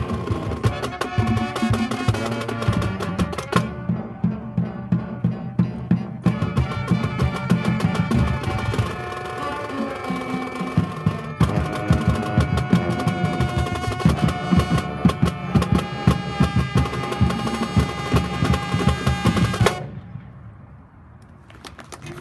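High school marching band playing, brass over a drumline keeping a steady beat. The music stops abruptly about twenty seconds in, and a much lower, noisy sound follows.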